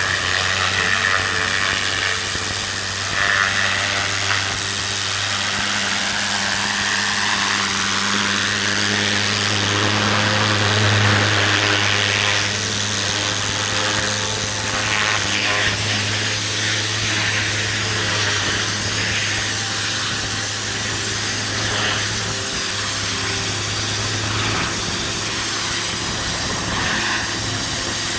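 Pressure washer running: a steady low hum from the machine under the constant hiss of a high-pressure water jet from a lance striking stone patio slabs.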